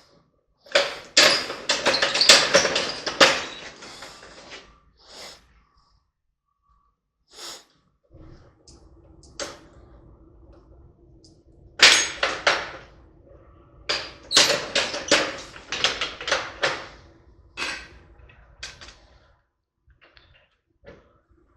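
Bursts of rapid, sharp metal knocking and clattering from work on a driveshaft U-joint, in three clusters with single knocks between, over a faint steady hum.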